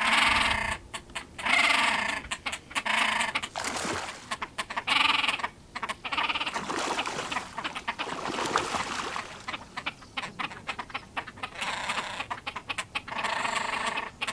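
Great crested grebes giving loud, harsh, repeated calls in a territorial quarrel between neighbouring birds, with splashing in the middle as one charges another across the water. The calls come in bursts through the first five seconds and again near the end.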